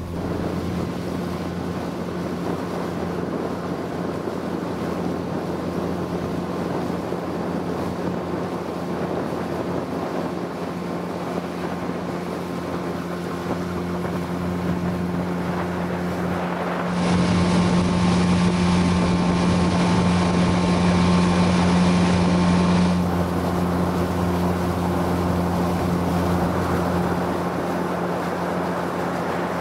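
Boat motor running at a steady pitch, with wind on the microphone; it is louder for a few seconds just past the middle.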